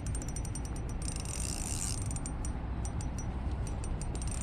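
Fishing reel's drag clicking in rapid, uneven runs as a hooked trout pulls line against it, over a steady low rumble of wind.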